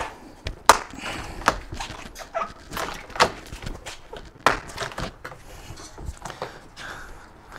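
Plastic tub ring of a Kenmore top-loading washer being pried and pulled off the tub: a series of sharp plastic snaps and knocks as it comes free.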